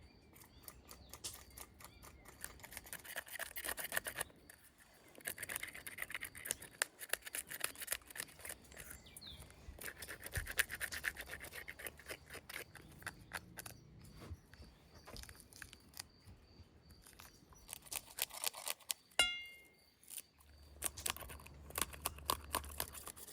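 Rapid scraping and clicking strokes of hand food-preparation work, coming in bursts a few seconds long with short pauses between them. About nineteen seconds in there is a single short metallic ring.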